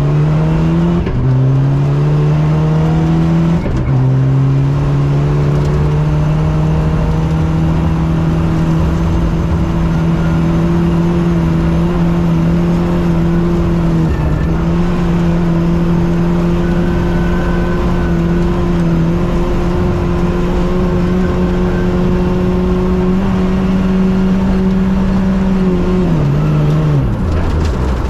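Rally car engine heard from inside the cockpit, climbing through quick upshifts in the first few seconds, then held at high, slowly rising revs for a long flat-out stretch. Near the end the revs drop steeply as the car slows, then pick up again.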